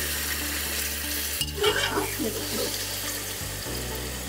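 Chunks of meat and onions frying in hot oil in a pressure-cooker pot: a steady sizzle, with a spatula stirring and scraping through the meat, most busily about a second and a half in.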